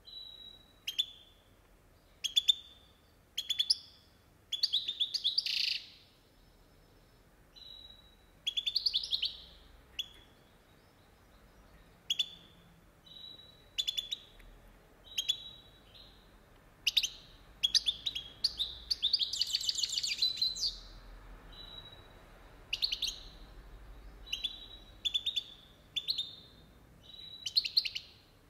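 European goldfinch singing in short bursts of high twittering song about once a second, with longer, fuller phrases around five seconds in and again about twenty seconds in.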